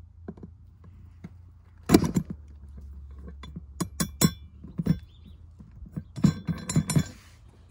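Needle-nose pliers clicking and clinking against a steel chainsaw bumper spike's roller pin and its tiny retaining clip as the clip is worked into place. The sharp metal clicks come scattered, loudest about two seconds in, with a quick cluster near the end.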